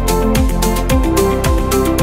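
Electronic background music with a steady low beat about twice a second under sustained synth notes.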